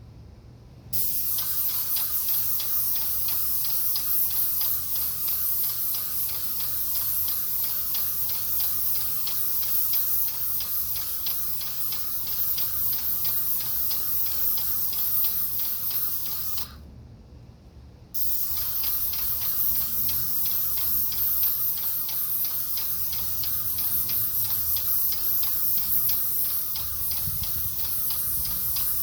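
Graco airless paint sprayer spraying in long passes, a steady hiss with a faint fast pulsing. The spray starts about a second in and stops for a moment around the middle before starting again.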